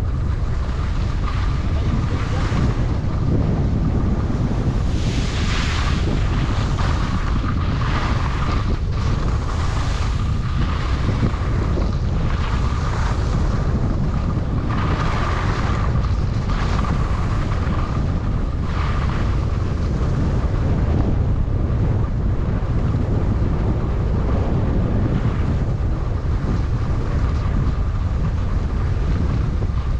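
Wind buffeting the microphone while skiing downhill, with skis hissing over the snow in swells every two to three seconds as the turns come. A faint steady whine runs underneath.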